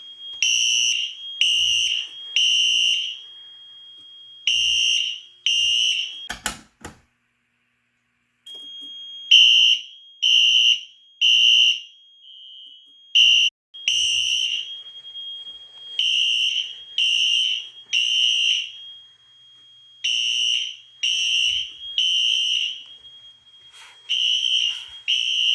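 Fire alarm horns sounding in the temporal-three evacuation pattern: three blasts about a second apart, a pause, then again, with a steady high tone between the blasts. The system is in alarm after a manual pull station was pulled. The sound cuts out for about a second and a half about seven seconds in.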